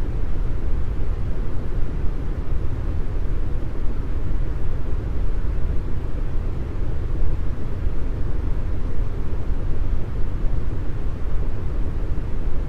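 Deep brown noise: a steady, even hiss with most of its weight in the low end, fading off toward the treble, with no changes or events.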